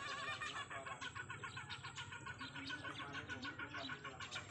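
Small birds chirping in a rapid run of short repeated notes, many a second.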